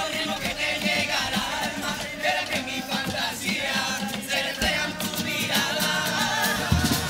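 Cádiz carnival comparsa choir singing a song in chorus with guitar accompaniment. Drums come in strongly near the end.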